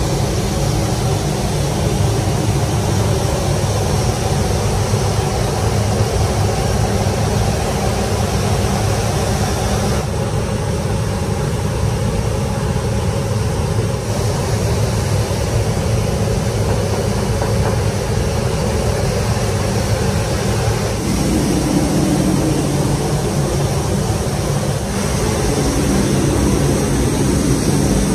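Steady, loud rumbling outdoor noise, its tone shifting several times, about ten, twenty-one and twenty-five seconds in.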